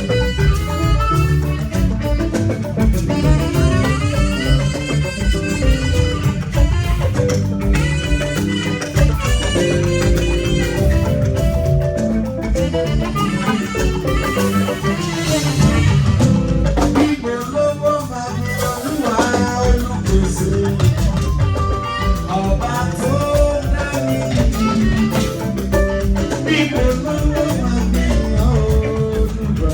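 Upbeat band music with drums and melodic instruments, playing loud and steady.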